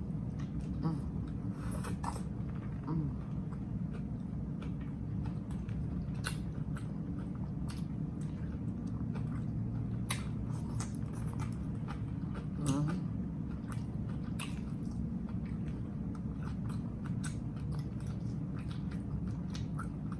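A person chewing and biting into a chopped grinder sandwich, with scattered wet mouth clicks and smacks over a steady low hum.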